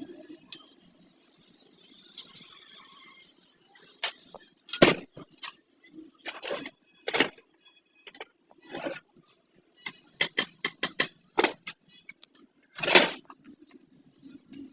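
A string of sharp metallic clinks and knocks, about a dozen irregular strikes starting around four seconds in, the loudest near the end: metal parts and tools being handled on a sewing machine during servicing.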